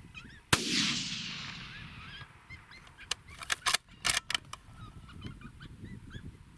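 A single rifle shot about half a second in, its echo dying away over about a second and a half, with a pack of coyotes yipping and howling around it. A few sharp clicks follow a few seconds later.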